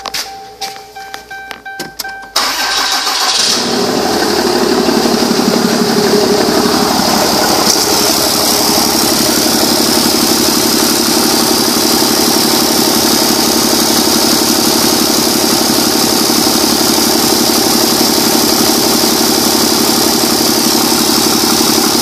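A 2012 Ram 2500's 6.7-liter Cummins turbo diesel starts about two seconds in, after a few clicks, then idles steadily.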